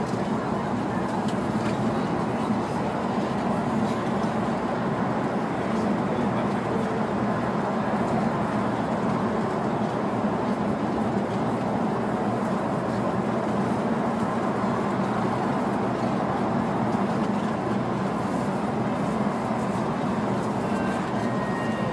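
Steady drone of road and engine noise heard from inside a bus cruising at highway speed through a road tunnel, with a constant low hum under it.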